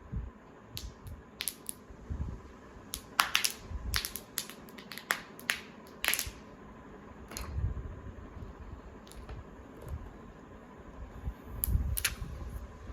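Wrapping being pulled off a laptop: scattered sharp crackles and clicks at irregular intervals, with a few soft low thumps of handling.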